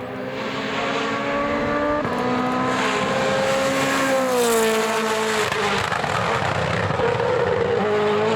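Rally car engine at full throttle on a stage: the note climbs, drops at a gear change about two seconds in, and climbs again. Around four to five seconds in the pitch falls away as the car backs off or passes, then holds steady with another step near the end, over gravel and tyre noise.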